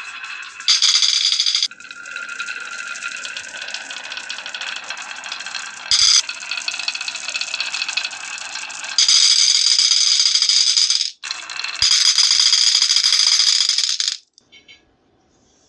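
Dozens of marbles rolling and clattering down the wavy grooves of a wooden marble-run slope and clinking into a glass dish at the bottom: a dense continuous rattle with several louder stretches, cutting off abruptly near the end.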